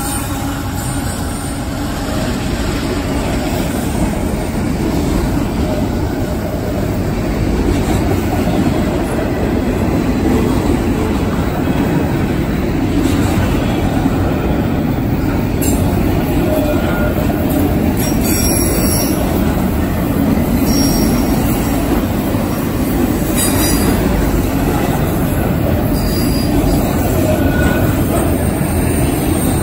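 Loaded autorack freight cars of a CSX train rolling past close by: a steady, loud rumble of steel wheels on rail, with a few brief high-pitched wheel squeals.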